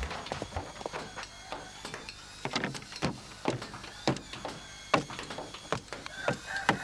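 Irregular wooden knocks and clatter, about a dozen sharp ones, as a small wooden boat is handled and moored at a wooden jetty.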